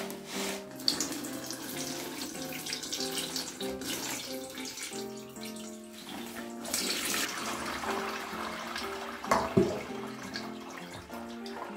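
Liquid pouring and splashing as a saccharified rice-and-barley-malt mixture is strained, with a couple of knocks a little after halfway, over background music.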